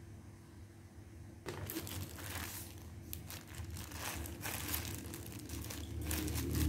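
A soft white wrapper crinkling and crackling as it is handled and pulled off a mini handheld fan, starting about a second and a half in.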